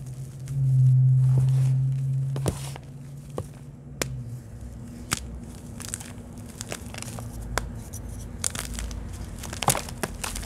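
Hands crushing and crumbling red reformed chalk blocks in a tray of chalk powder: scattered sharp crunches and gritty crackles as the chunks break and grind. A loud low hum runs under the first two seconds or so.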